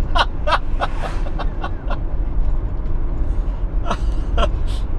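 Steady engine and road rumble heard inside the cab of a Fiat Fiorino delivery van driving along, with short breathy vocal sounds in the first second and again about four seconds in.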